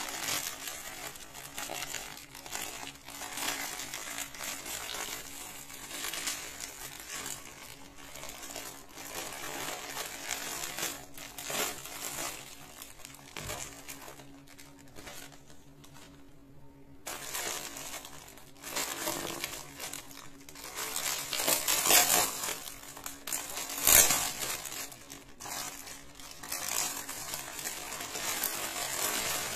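Plastic courier mailer being torn and crinkled by hand, then a clear polythene bag of packaged underwear rustling and crackling as it is handled, with a short lull about halfway and a few louder crackles later on.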